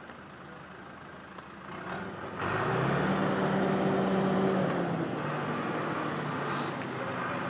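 Diesel engine of heavy construction equipment idling, then revving up sharply about two and a half seconds in and running hard with a steady engine note for a couple of seconds before easing back to a lower, steady run.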